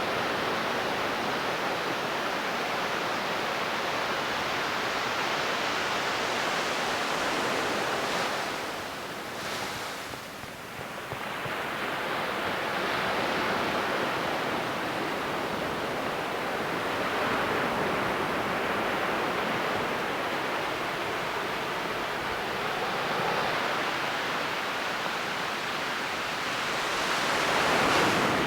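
Ocean waves breaking and washing up a beach, the surf rising and falling, with a brief lull about a third of the way in and a bigger wave surging near the end.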